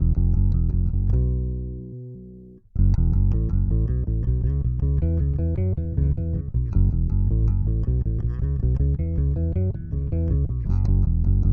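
Electric bass guitar played through a DemonFx OctaBass octave pedal, recorded direct. About a second in one low note rings and fades, then a busy line of fast plucked notes follows.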